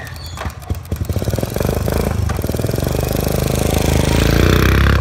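Honda postie motorcycle's small single-cylinder four-stroke engine, on a three-wheeled conversion, revving up as the bike pulls away. Its firing pulses quicken within the first second or so, and the engine grows louder as it passes close by, loudest near the end.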